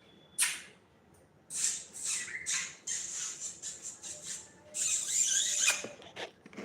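Cockatiel giving harsh, raspy squawks in a few bursts: one short call just after the start, a run of calls a second or two in, and a loud longer one about five seconds in.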